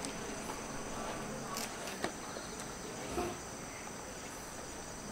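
Steady, high-pitched insect drone, with a couple of faint clicks about two seconds in.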